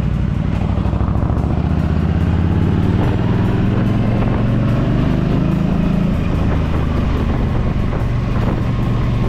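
Yamaha V Star 1300's V-twin engine pulling on the move: the revs climb for a few seconds, then drop back about six seconds in, as at a gear change or easing off the throttle.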